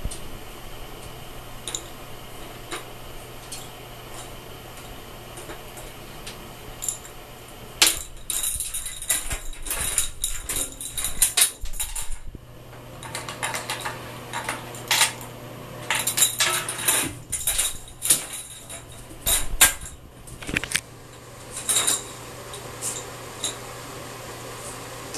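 A small hard toy skittering and clattering across a bathtub floor as a cat bats it around: scattered clicks at first, then dense runs of rattling through the middle, thinning out again near the end. A steady low hum runs underneath.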